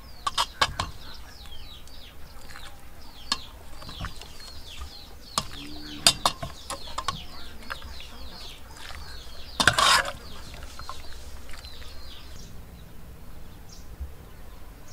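Birds chirping in a rapid run of short, falling calls, easing off near the end, over sharp clinks of a metal ladle and spoon against the pot and bowl as soup is served, with one louder clatter about two-thirds in.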